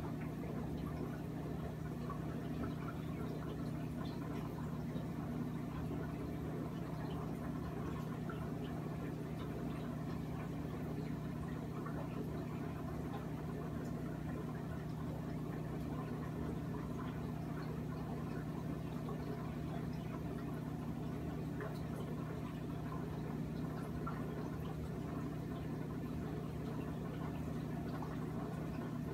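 Steady hum of aquarium equipment with a faint trickle of bubbling water running through it.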